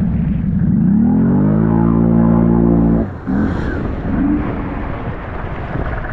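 Can-Am ATV engine revving: its pitch climbs and holds for a couple of seconds, then the throttle drops off sharply about three seconds in, leaving a rougher, noisier rumble.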